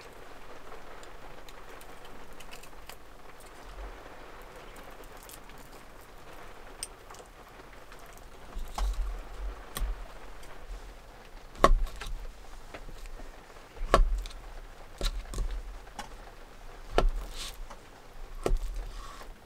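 Kitchen knife slicing an avocado on a wooden cutting board: a series of sharp taps as the blade meets the board, some with a dull knock through the table, in the second half. A steady hiss of rain on the camper runs beneath.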